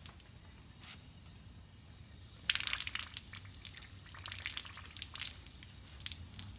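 A thin stream of water spurting from the outlet of a deionizing filter tank and splashing onto concrete. It starts suddenly about two and a half seconds in as an uneven splashing hiss.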